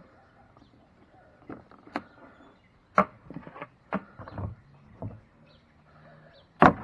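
Irregular handling noise: a series of short clicks and knocks of objects being picked up and moved, with the loudest knock near the end.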